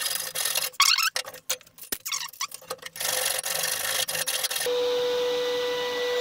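Hand file rasping over a metal part held in a bench vise, in separate strokes. About three-quarters of the way through it gives way to the steady whine of a running router motor.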